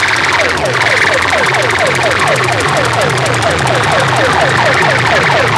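DJ sound-box music blasted loud through horn loudspeakers: a falling, siren-like synth effect repeats about three times a second over a pulsing bass beat.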